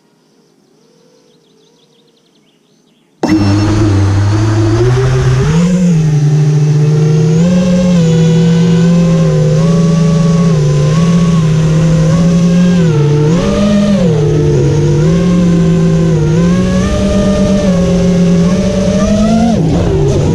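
FPV quadcopter's brushless motors and propellers: faint for about three seconds, then abruptly spinning up to a loud whine whose pitch rises and falls constantly with the throttle.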